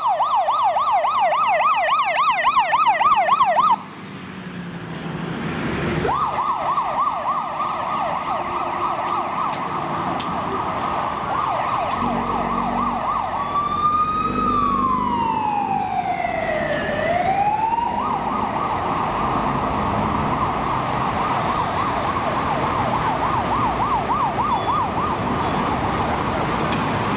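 Fire engine sirens on responding London Fire Brigade appliances: a fast yelp sweeping up and down about four times a second, which breaks off briefly about four seconds in and then resumes. About halfway through it changes to a slow wail that falls and rises once, then the fast yelp returns, with traffic noise underneath.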